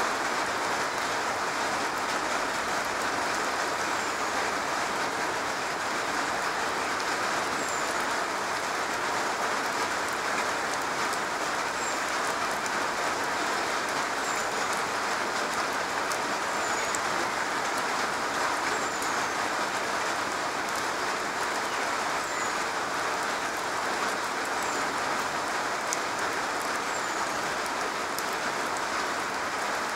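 Steady rain falling on a garage roof, a dense, even patter of drops.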